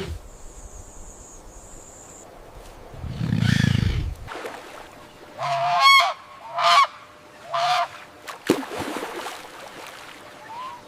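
A bird calling three times in quick succession, each call under a second and the first the longest, preceded by a low rumbling sound.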